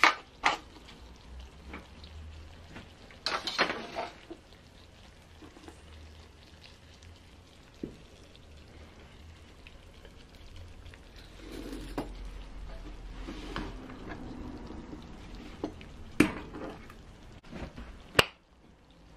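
Stainless cookware and a metal stove stand being lifted and set down on a table, giving several sharp metallic clinks and knocks, the loudest at the start and near the end. A faint sizzling hiss runs underneath.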